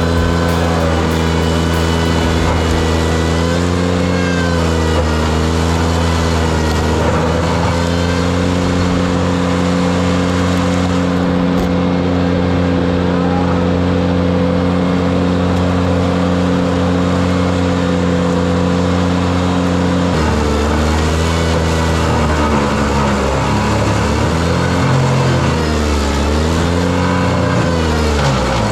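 Ventrac compact tractor's engine running hard, its pitch holding steady for a long stretch, then dipping and recovering several times in the last several seconds.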